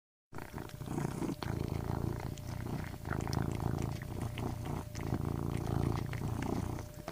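Domestic cat purring close up. The low rumble swells and fades in about three long breath cycles, with a faint steady hum underneath.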